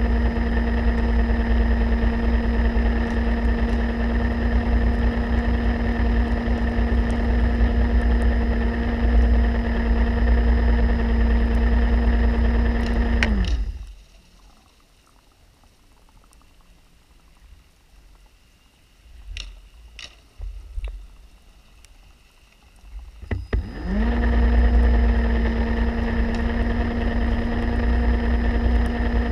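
Underwater scooter (diver propulsion vehicle) motor running with a steady hum. It winds down and stops about halfway through, leaving a quiet stretch with a few faint clicks, then starts again with a rising pitch and runs on.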